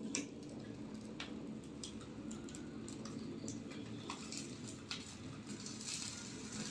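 Wood fire under a fish grill, crackling and popping in scattered sharp clicks over a steady low rushing.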